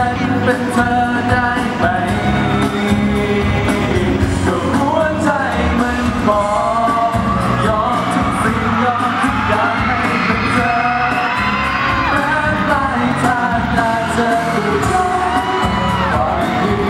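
Live pop song over a PA system: a man singing into a handheld microphone over backing music, with yells from the audience.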